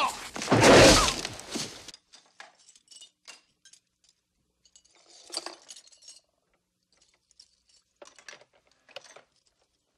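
The tail of a crash of breaking window glass and ice smashing into a stereo, fading out over about two seconds. Scattered faint clinks and tinkles of broken glass debris follow.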